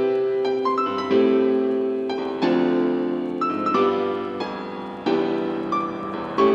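Background music: piano or electric-piano chords, a new chord struck about every second and a half and fading until the next.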